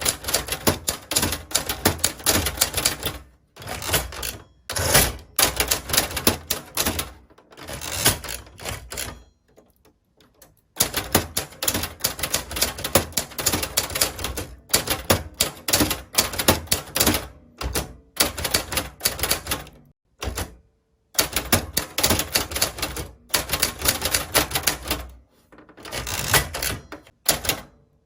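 Typewriter keys struck in quick runs of clacking, each run broken by short pauses, with a longer pause about ten seconds in.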